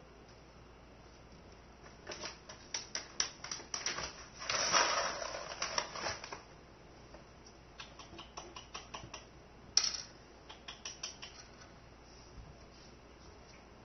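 Gerbil scrabbling on its wire cage and wooden shelf: quick runs of small clicks and scratches, with a longer scratch about five seconds in and one sharp click near ten seconds.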